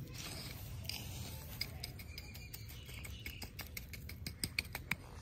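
Dry earth, pebbles, twigs and dead leaves scraped and pressed down by hand to fill in a small grave: a run of sharp crackles and clicks, thickening near the end, over a steady low rumble.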